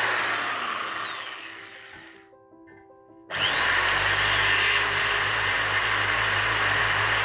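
Electric hand drill boring a hole in a clay matka pot: a short run that fades away, then after about a second's pause a longer steady run that cuts off suddenly.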